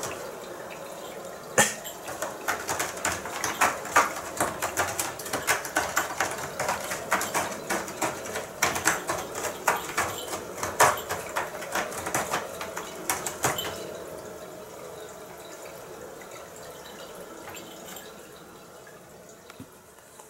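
A cat's claws raking a corrugated cardboard scratching board (GariGari Wall) in quick, irregular scratching strokes, which stop about thirteen seconds in, leaving faint room noise.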